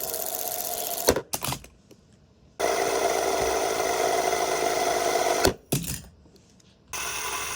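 Fidget spinner whirring in stretches of a few seconds. Each stretch is cut off suddenly by a sharp knock and a few quick clacks, twice. A new whir starts near the end.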